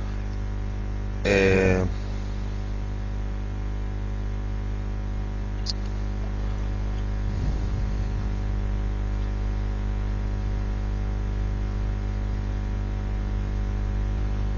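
Steady electrical mains hum with hiss in the recording. About a second and a half in there is a brief, louder vocal sound from a man, lasting about half a second.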